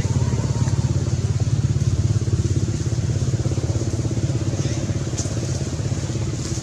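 A motor engine running steadily, a low, even, rapid throb with no change in speed.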